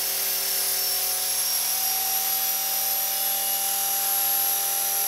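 Blade 450 electric RC helicopter running with its main rotor spinning, a steady high motor-and-gear whine over the rotor's rush. The whine rises a little in pitch about two seconds in as the head speed picks up.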